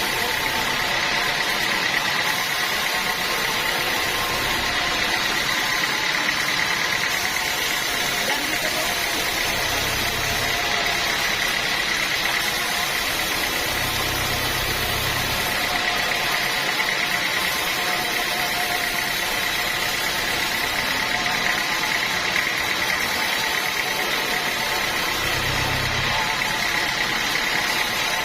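Sawmill machinery running steadily: a continuous mechanical drone with a high, unchanging whine. A deeper hum swells briefly three times.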